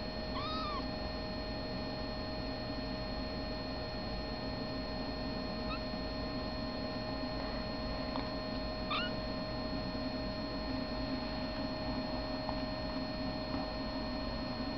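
Ten-day-old Siamese kittens mewing: one high arched mew about half a second in, a faint short mew about six seconds in and a short rising mew about nine seconds in, over a steady electrical hum.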